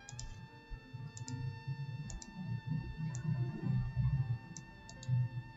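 Computer mouse clicking a handful of times at irregular intervals, with a low irregular rumble underneath and faint steady tones.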